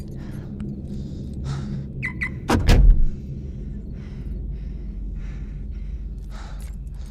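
A single heavy thud about two and a half seconds in, with a low boom that rings briefly, preceded by two short high clicks. Under it, a low steady drone and soft, regular heavy breaths about once a second.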